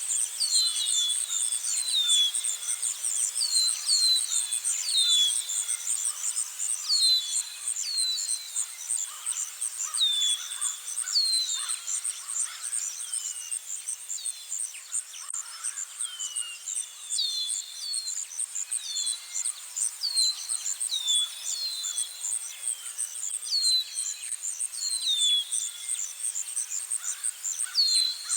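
Outdoor nature ambience: a steady, fast-pulsing insect trill with a bird repeating short falling chirps, roughly one a second, some in quick pairs.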